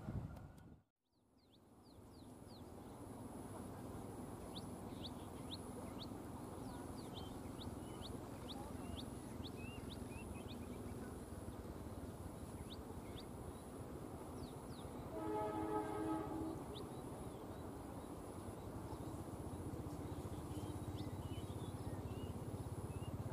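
Trackside ambience with birds chirping and a high pulsing insect call over a low steady rumble. A distant train horn sounds a chord of several notes for about a second and a half, two-thirds of the way through, and starts again at the very end.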